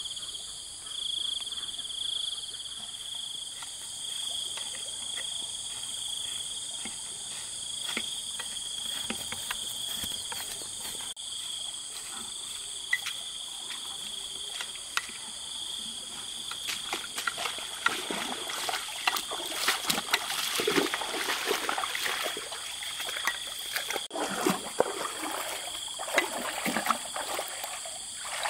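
Steady insect chorus, a high chirring, with water trickling and splashing over it; the splashing gets busier and louder in the last third.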